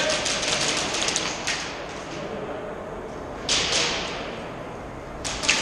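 Airsoft guns firing, sharp cracks echoing in a large indoor hall: a quick string of shots at the start, one louder crack with a long echo about three and a half seconds in, and another couple of cracks near the end.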